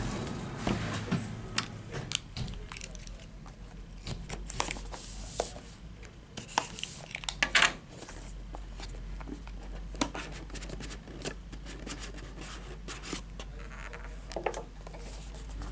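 A cardboard trading-card box being handled and opened by hand: scattered rustles, scrapes and light taps against a glass counter, the loudest scrape about seven and a half seconds in.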